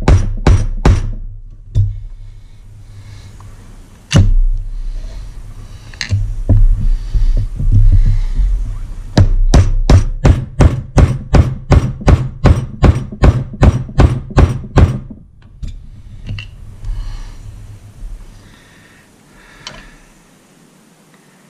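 Hammer blows on a driver held in an outboard's lower crankshaft end cap, knocking out the lower ball bearing and seal, which is not yet free. A run of sharp, even blows about three a second, a lull with a few single blows, then a second long run at the same pace, followed by lighter clinks as the metal cap is handled near the end.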